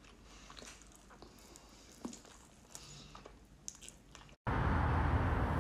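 Quiet chewing and small mouth clicks of someone eating a boneless chicken wing. About four and a half seconds in it cuts off abruptly to a much louder steady rushing noise.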